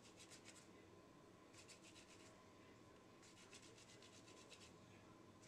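Palms rubbing together, rolling a small piece of soft beignet dough into a ball: faint, quick rubbing strokes in three short spells.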